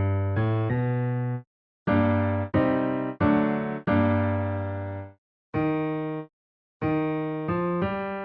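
Electric piano playing short groups of struck chords, each group of one to four chords, the notes decaying and then cut off abruptly into silence before the next group.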